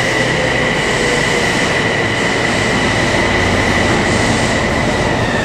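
Toei Mita Line 6300-series subway train standing in an underground station, giving a steady high-pitched electrical whine over a broad rumble. The whine stops near the end.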